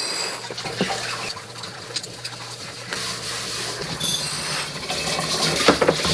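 Roasted coffee beans poured from a bag into a glass canister: a continuous rushing rattle, with beans clicking against the glass. It gets louder about four seconds in.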